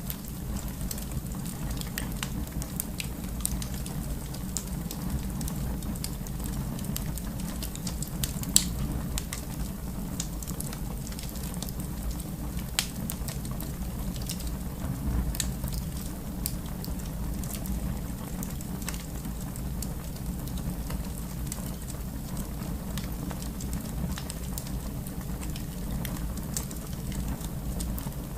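Fireplace fire crackling: a steady low rumble of flames with scattered sharp pops and snaps, one louder pop about eight seconds in.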